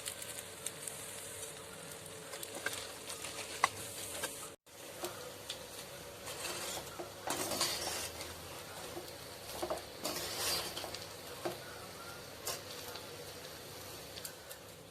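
Rice being stirred and tossed with a spatula in a pan of sautéed vegetables and Schezwan sauce: scraping and clicking against the pan over a light sizzle. The sound cuts out briefly about four and a half seconds in.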